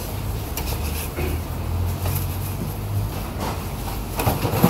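A steady low rumble, with a few sharp clattering knocks near the end from metal baking trays being handled, the loudest just before the end.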